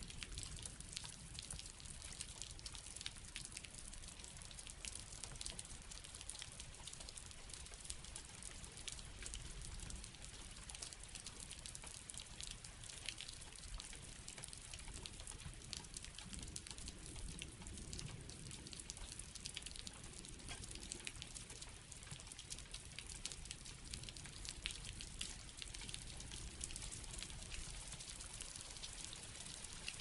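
Steady rain falling, with many individual drops ticking close by over a low, even rumble.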